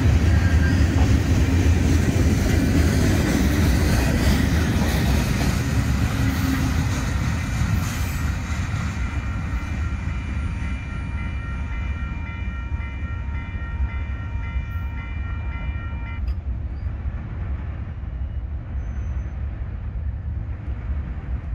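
Freight cars rolling past with a heavy rumble that eases as the end of the train goes by. From about a third of the way in, a faint multi-note locomotive air horn sounds for about eight seconds and cuts off sharply.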